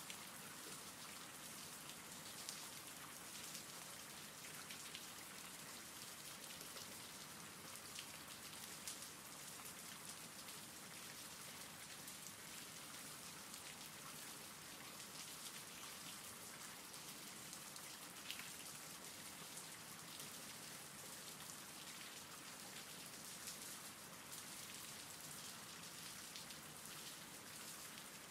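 Faint steady rain: an even hiss of rainfall with scattered single drops ticking through it.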